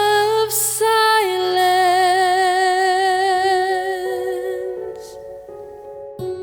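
A woman singing one long held note with vibrato, briefly stepping up in pitch about a second in and then settling on a lower note, over sustained instrumental chords. The voice stops about five seconds in and the chords carry on alone.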